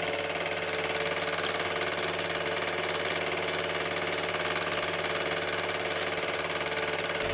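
Diesel engine of a large crawler crane running steadily at a constant speed, an even hum that does not change.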